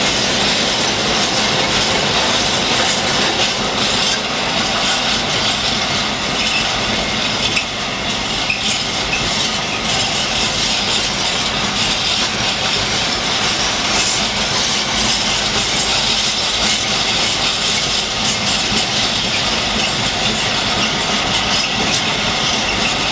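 Freight train of tank wagons rolling past close by: a loud, steady rumble and rattle of steel wheels on the rails.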